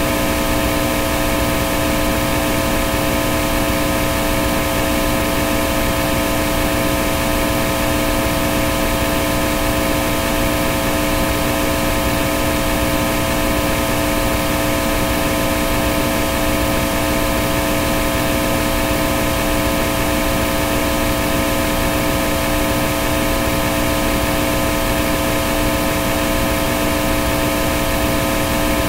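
White-noise static: a loud, unchanging hiss spread across all pitches, with several steady humming tones mixed into it, like TV or amplifier static.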